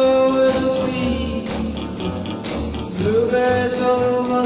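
A 1959 rock and roll record: a voice holding long sung notes over a steady bass beat and percussion hits about once a second. A new held note rises in about three seconds in.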